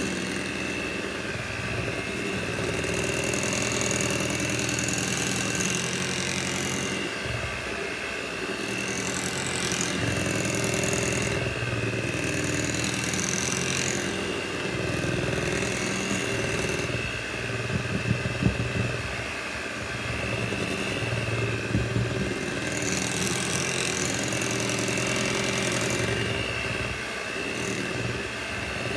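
Electric hand mixer running steadily on its lowest speed, its beaters whipping thick cheesecake batter, with a constant motor whine. A few short sharp ticks come about two-thirds of the way through.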